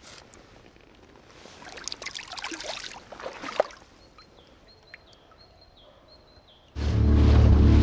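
Splashing in shallow river water for about two seconds as a released brown trout swims off from the hand. Near the end, loud outro music with steady low tones starts abruptly.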